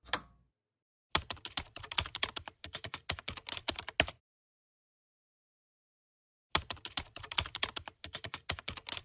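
Rapid computer-keyboard typing in two runs of about three seconds each, with a silent pause of about two seconds between them. A single short click comes right at the start.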